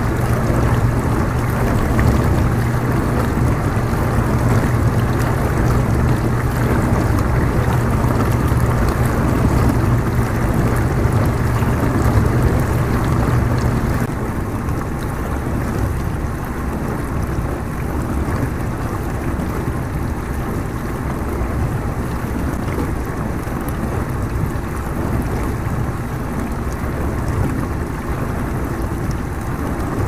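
Dishwasher running a cycle: a steady rush of water spraying and sloshing inside the tub over a low motor hum. About halfway through the hum cuts out and the water sound carries on, a little quieter.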